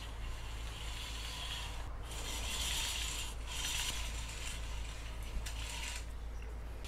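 Cord running through the pulleys and cord lock of a cheap ceiling-mounted bike hoist as it is pulled to lift a bicycle. It makes a rasping, ratchety whir in a few long pulls with short breaks between them.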